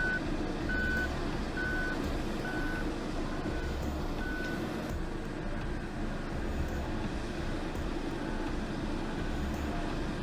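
A heavy machine's reversing alarm beeping about once a second over a steady diesel engine rumble; the beeps stop about halfway through while the engine keeps running.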